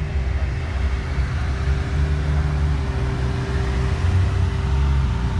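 Ferrari 458 Italia's V8 running at a steady low idle, with no revving, as the car creeps slowly through the parking lot.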